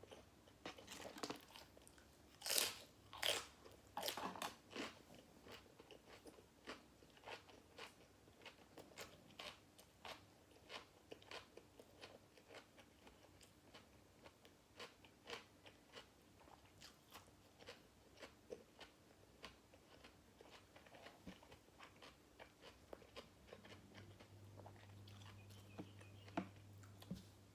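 A person biting into crisp food and chewing: a few loud crunches a couple of seconds in, then steady chewing with small wet mouth clicks. The food is grilled pork balls with crunchy raw vegetables.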